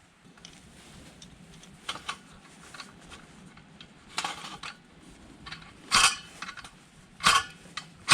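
Metal cookware and utensils clinking and knocking together: scattered sharp strikes, some with a short metallic ring, louder in the second half.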